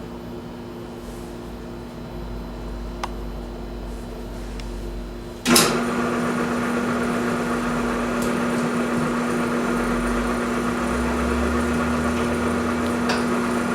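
An electric motor switched on with a click about five and a half seconds in, then running with a steady hum. Before it starts there is only a faint low hum.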